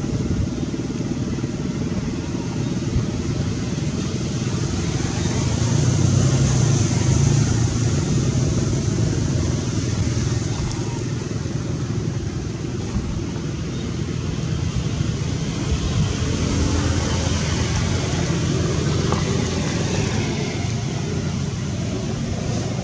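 A steady low rumble of outdoor background noise, with no single clear event standing out.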